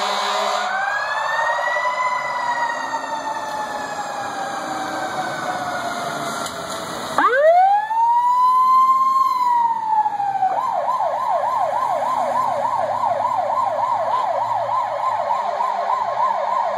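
Fire apparatus siren wailing in long rising and falling sweeps. It is loudest as the truck passes close about seven seconds in, then switches to a fast yelp of about three to four warbles a second.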